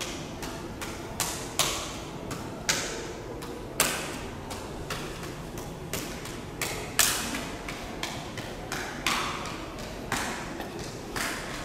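A run of irregular sharp knocks or taps on something hard, about two or three a second, each ringing briefly, with some much louder than others.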